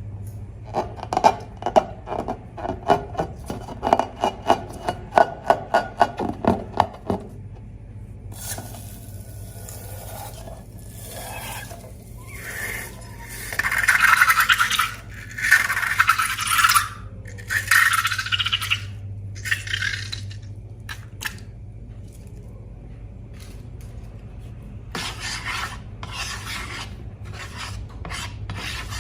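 Slime being worked: a fast run of sharp clicks and pops for the first several seconds, then irregular bursts of scraping and rasping, over a steady low hum.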